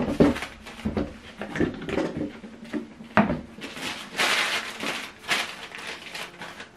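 Clear plastic accessory bags crinkling as they are handled and set down on a table, with small knocks as items touch down. The longest and loudest crinkling comes about four seconds in.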